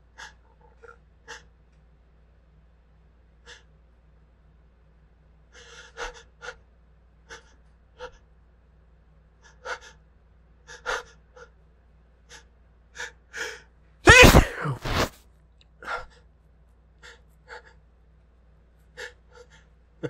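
A man's pepper- and spice-provoked sneezing fit: a long string of short, sharp hitching breaths, then one loud sneeze about two-thirds of the way through, followed by more hitching breaths.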